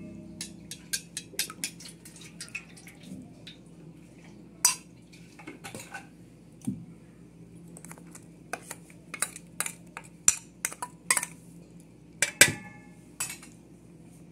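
A spoon clinking and scraping against a stainless steel mixing bowl in many sharp, irregular clicks, with the loudest knock near the end, as ingredients are spooned into yogurt.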